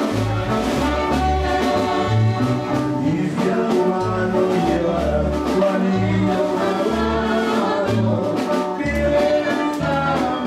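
Music: a song with a voice singing over a steady, regular bass beat.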